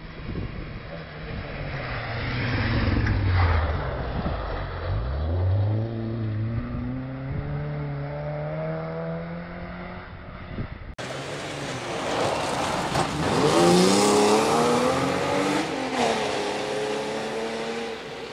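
Rally car engine on a gravel stage: the note falls as the car slows into a bend, then climbs steadily as it accelerates away. About eleven seconds in it cuts to another pass, with the engine revving up and down through the gears as the car approaches.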